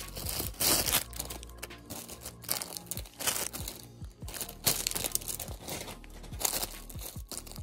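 Plastic packaging bags crinkling and rustling in irregular bursts as phone cases in clear zip bags are handled, with music underneath.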